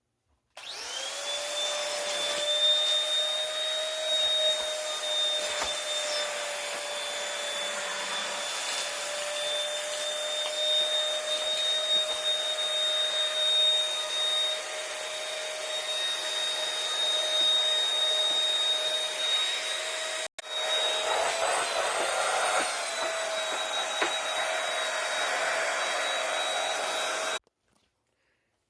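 Stick vacuum cleaner's motor running with a steady high whine over the rush of air. It starts just after the beginning, drops out for a moment about twenty seconds in, and shuts off abruptly a second before the end.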